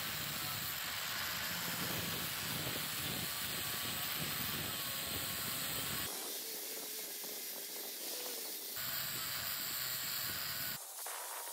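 Angle grinder with an abrasive disc grinding a steel motorcycle sprocket: a steady hissing grind with a faint whine. The sound changes abruptly three times in the second half.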